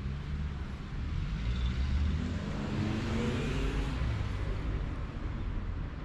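A motor vehicle passing close by, its engine note rising in pitch as it accelerates, loudest about three seconds in and then fading away.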